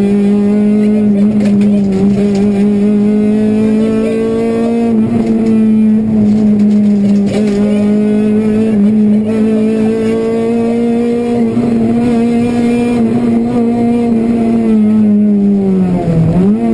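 Honda Civic Type-R rally car's four-cylinder engine heard from inside the cabin, held at high revs under load at near-steady pitch. The revs dip sharply and come straight back up near the end.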